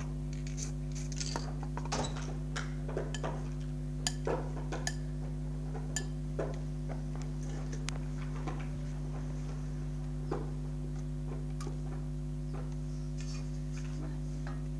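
Scattered light clinks and knocks of metal spray cans and a metal pan being handled, a few with a short hiss, over a steady low hum.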